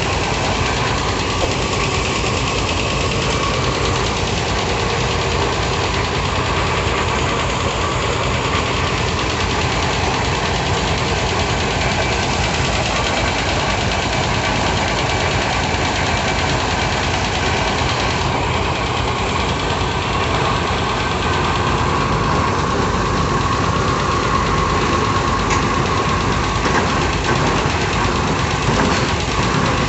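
Hydraulic piling rig's engine running steadily, getting slightly louder near the end.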